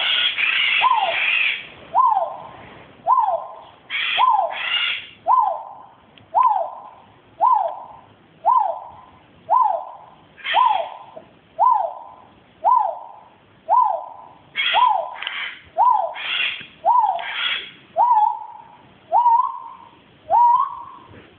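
A bird giving a loud whooping call, one falling whistled note about every second; near the end the notes turn to short rising ones. Harsher, higher sounds come in over it at times.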